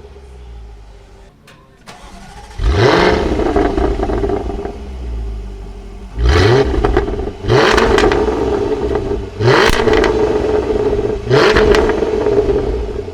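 The supercharged 5.0-litre V8 of a 2016 Jaguar F-Type V8 R, exhaust loud: the car coasts quietly at first, then about two and a half seconds in the engine pulls hard with rising revs. It surges again four more times, each after a short dip, as under hard acceleration.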